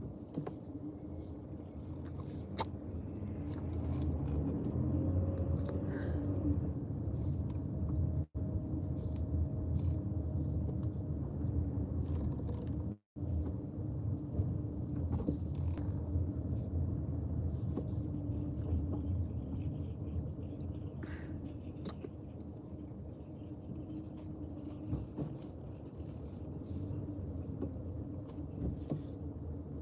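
Car driving, heard from inside the cabin: a steady low road-and-engine rumble with a faint hum, a tone rising briefly about five seconds in, and a few small clicks. The sound cuts out twice for a moment.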